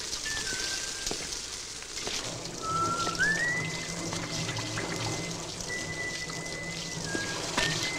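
Water splashing and trickling as a vehicle is washed by hand, with a man whistling a tune over it: a few short notes, then a note that slides up and is held for several seconds before dropping near the end.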